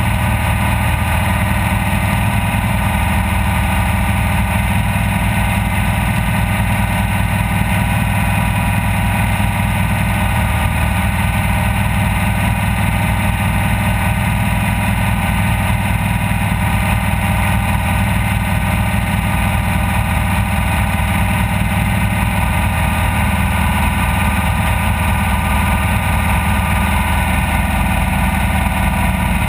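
Off-road race vehicle's engine running steadily at an even pitch, loud and unbroken, with no revving up or down.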